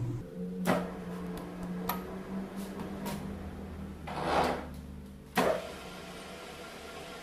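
Metal lathe running with a motorcycle cylinder head spinning in its chuck: a steady low hum broken by several light knocks, a brief noisy swell about four seconds in and a sharp clunk just after five seconds.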